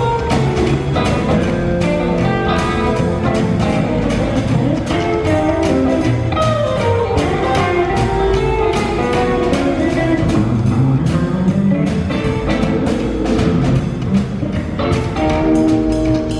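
A live band playing an early-1960s rock-and-roll number, with a steady beat.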